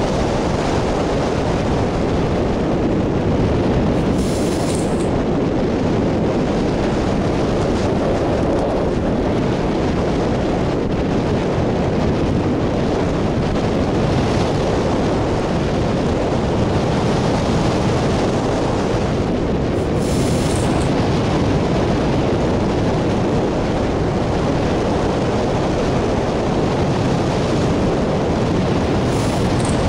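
Steady rush of airflow buffeting the microphone of a camera mounted on a hang glider's wing in flight, with a brighter hiss three times, about four seconds in, near the middle and near the end.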